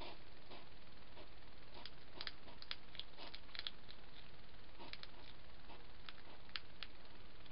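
Hedgehogs feeding at a food bowl: a couple of soft huffs near the start, then from about two seconds in a scatter of small sharp clicks and crackles, over a steady low hiss.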